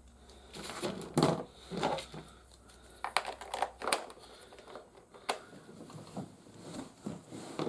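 Hard plastic toy-vehicle parts clicking and knocking irregularly as they are handled and pressed together, with some rustling.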